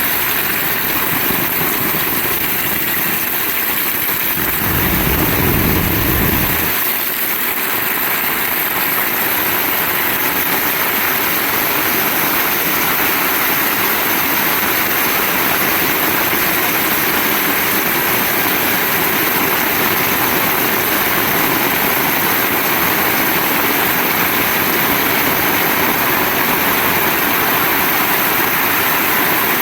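Heavy rain falling steadily, a dense even hiss. About five seconds in, a low rumble swells for about two seconds and fades.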